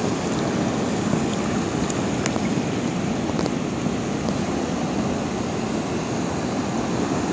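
Steady rushing noise of shallow surf washing over sand at the water's edge.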